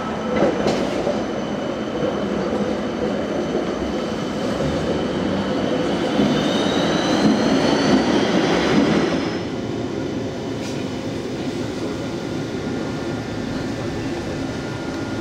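Transtech Artic low-floor tram running on its rails, a steady noise of wheels and running gear with a thin rising whine about six seconds in. About nine seconds in the sound drops abruptly to a quieter, steadier running hum, the ride as heard inside the tram.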